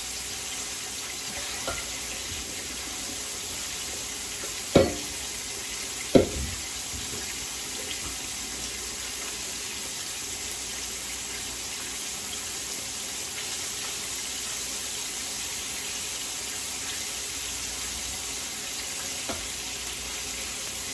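Kitchen tap running steadily into the sink while a bowl is washed. Two sharp clunks about five and six seconds in are the bowl knocking against the sink.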